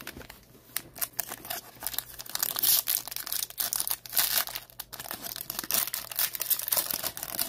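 Foil wrapper of a 2021 Topps Series 1 baseball card pack crinkling and tearing as it is picked up and ripped open by hand, a run of irregular crackles that grows busier about two seconds in.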